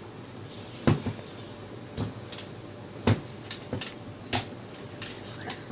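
Kitchen clatter: about nine sharp knocks and clinks of containers and utensils being handled, the loudest about one second in and again at about three seconds.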